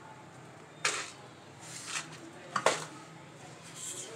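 Whole spices dropped into a metal pot of water: three sharp taps or small plops about a second apart, the last the loudest, over a faint steady hum.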